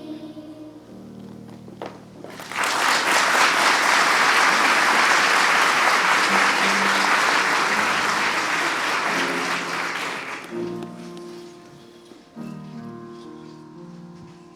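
Held musical notes close a song, then an audience applauds for about eight seconds. The applause dies away and a few sustained musical notes play again.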